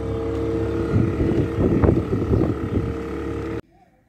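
Boat engine running steadily with wind noise on the microphone, cutting off abruptly about three and a half seconds in.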